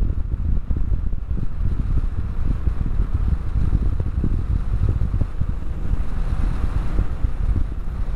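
Wind buffeting the GoPro's microphone on a moving Harley-Davidson Street 500, a dense low rumble with uneven gusts, with the motorcycle's V-twin running underneath.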